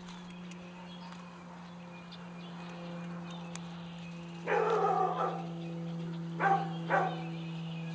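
Dog barking: one longer bark about four and a half seconds in, then two short barks about two seconds later, over a steady low hum.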